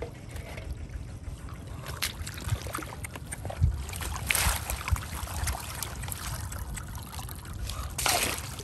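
Muddy shallow water sloshing and trickling as a plastic basket is pushed and dragged through mud and weeds, with louder splashes about four seconds in and again near the end.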